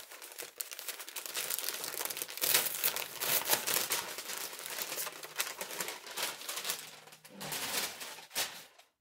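Crinkling and rustling as a cardboard shipping box and its packing are rummaged and handled, with many small scrapes and taps. It dies away about a second before the end.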